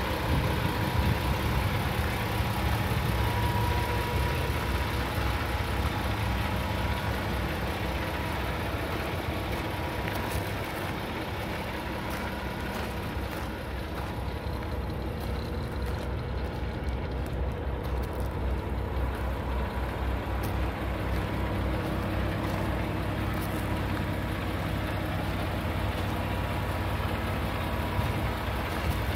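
Paccar MX-13 inline-six diesel of a 2019 Peterbilt 389 day cab idling steadily, a low even drone.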